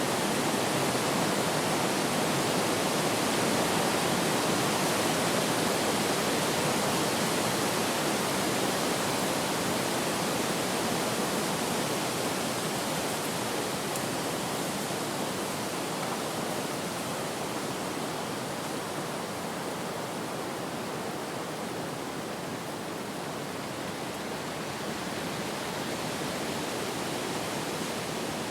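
Wind blowing as a steady rushing noise, a little louder in the first few seconds and easing off gradually.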